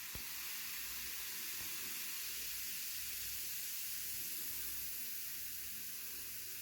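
Baking soda and vinegar fizzing as the reaction foams over: a steady, even hiss, with one small click right at the start.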